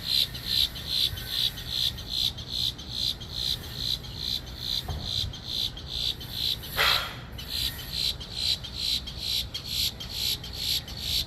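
Insect chirping in a steady, even rhythm, about three high-pitched chirps a second, cricket- or katydid-like. About seven seconds in, one short, lower, harsher call stands out.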